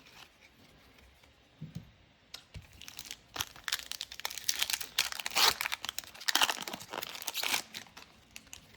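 Foil wrapper of a Pokémon TCG Burning Shadows booster pack being torn open and crinkled, starting about two and a half seconds in and lasting about five seconds.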